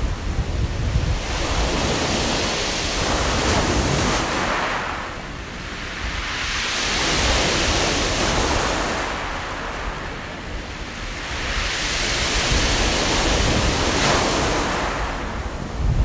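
Sea waves washing up a beach of smooth round pebbles (mongdol) and draining back through them, the pebbles rattling and hissing in the backwash. The surf swells and fades about three times.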